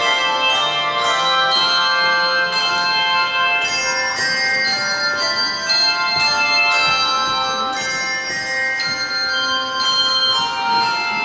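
Handbell choir playing a Christmas medley: many bells struck together in chords, each ringing on in long, sustained tones as new strikes come in.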